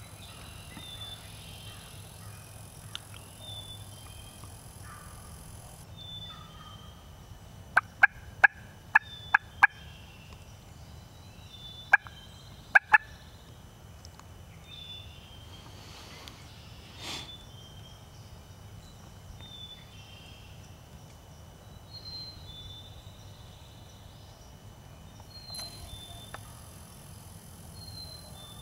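Turkey yelps: a quick series of six sharp, loud yelps about eight seconds in and three more around twelve seconds, with small high bird chirps between them.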